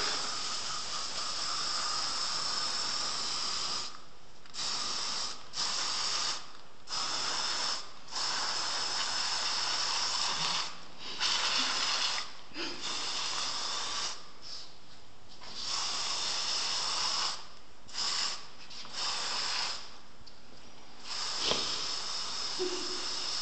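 Aerosol hair spray hissing from a can in repeated bursts, some lasting several seconds, with short breaks between, as a lot of it is sprayed onto a finished updo to fix it.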